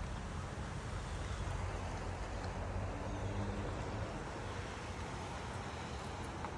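Steady outdoor background noise, a low rumble with a hiss over it and no distinct events.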